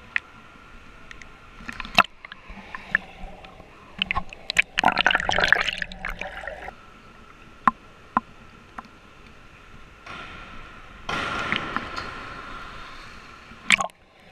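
Pool water lapping and splashing against a camera held at the water's surface, with scattered sharp drips and slaps and two longer bursts of splashing. Near the end the camera goes under and the sound turns muffled.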